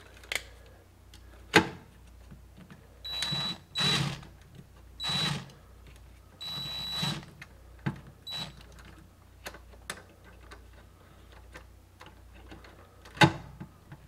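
A cordless DeWalt 20V Max impact driver run in about four short bursts, driving home the screws that hold a washing machine's shift actuator, its motor giving a steady high whine each time. Several sharp clicks fall between the bursts.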